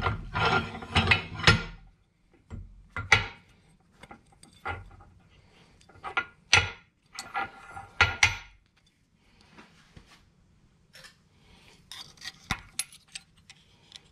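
Steel die blocks and a freshly bent sheet-metal bracket clinking and scraping against each other as they are handled on a press. A dense clatter in the first two seconds, then single knocks at uneven gaps, and lighter, quicker ticks near the end.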